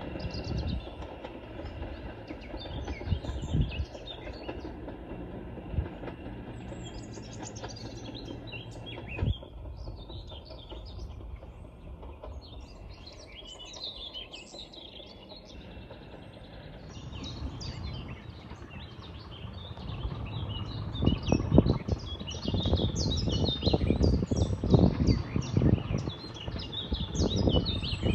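A heritage diesel multiple unit runs away along the line, its rumble fading into the distance, while songbirds chirp and sing throughout. In the last third, irregular low rumbling buffets grow loud and become the loudest sound.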